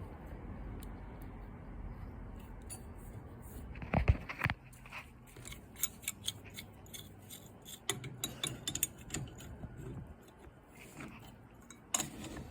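Metal tools and parts being handled during hand work on an ATV. A low rumble first, then a cluster of loud knocks about four seconds in, then scattered clicks and clinks.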